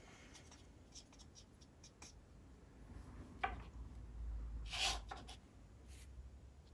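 Faint scratching and rustling of a fine watercolour brush and the painter's hand moving over paper, with two louder brief rustles about three and a half and five seconds in.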